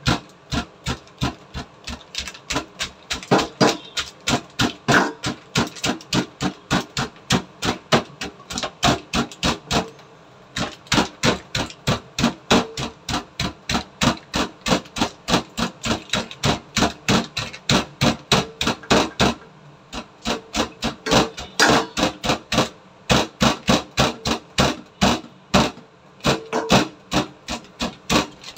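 Wooden rolling pin beating chicken breast flat inside a plastic bag on a plastic cutting board, used as a meat mallet: rapid, even thumps, about three or four a second, with two short breaks about ten and twenty seconds in.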